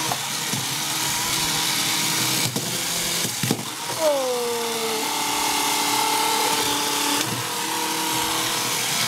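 Small electric motors of two Bandai Break Go! Ga! toy battle robots whirring as they fight in a plastic arena, with sharp plastic clacks as they collide. About four seconds in, the motor whine drops in pitch as the robots lock together and push against each other, then holds steady.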